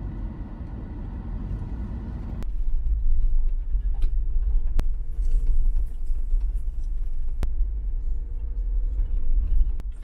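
Steady low rumble of an SUV driving on a gravel road, heard from inside the vehicle, with a few sharp clicks.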